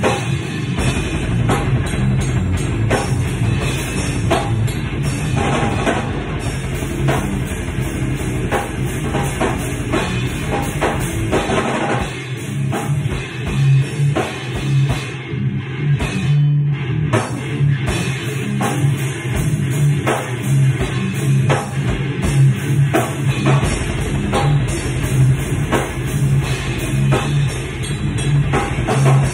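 Electric guitar playing a heavy metal riff over a drum kit.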